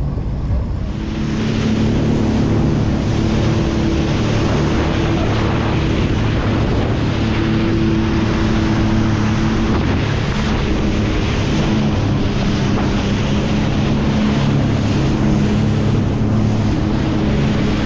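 Jet ski engine running steadily, with rushing water and wind on the microphone.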